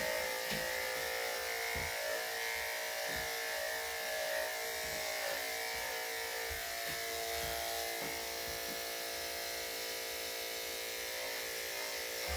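Corded electric dog-grooming clippers fitted with a #7 blade, running with a steady hum as they clip the dog's coat.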